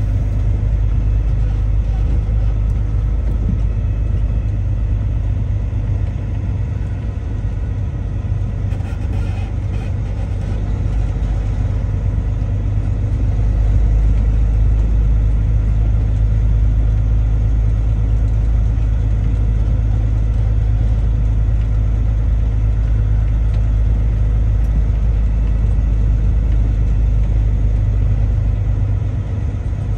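Truck's engine and road noise droning steadily while driving, heard from inside the cab, growing a little louder about halfway through.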